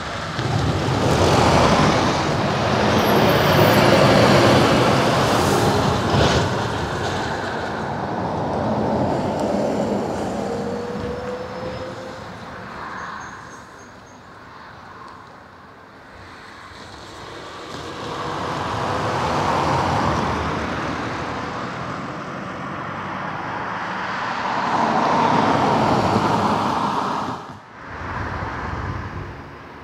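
Road vehicles, a van, a bus and cars, driving over a railway level crossing one after another, each pass a swell of engine and tyre noise that rises and fades; the sound dips sharply for a moment near the end.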